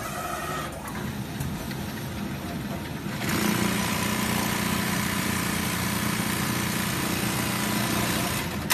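Automatic pocket-setting sewing machine running. About three seconds in it steps up to a louder, steady running noise as it stitches the pocket down through the template clamp, and it drops back just before the end with a short click.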